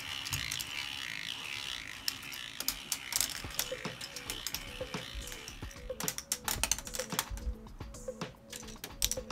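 K'nex ball machine running: dense plastic clicking and rattling of balls on the tracks and in the lift mechanisms, over a faint steady motor hum. The clicks grow busier about six seconds in.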